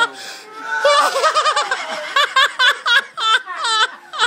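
People laughing hard, in high-pitched bursts that come in a quick run in the second half.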